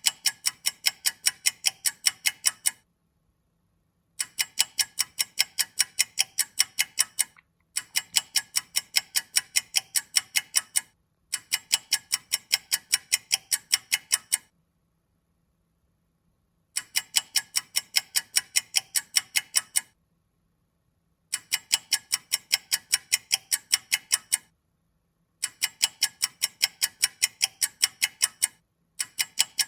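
Clock ticking in quick, even ticks, about five a second. The ticks come in runs of about three seconds broken by short silences.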